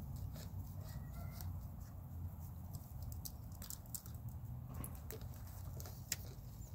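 Five-week-old Belgian Malinois puppies playing: light scattered patter and clicks of paws and teeth on a plastic container, toys and a plastic platform, over a low steady rumble. One sharper click comes near the end.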